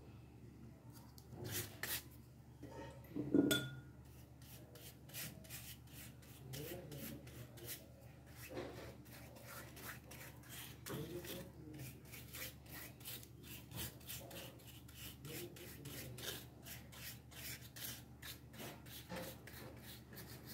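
A flat paintbrush scrubbing back and forth over plywood cut-outs, applying a wood finish in quick, repeated strokes. About three seconds in there is one louder short clink.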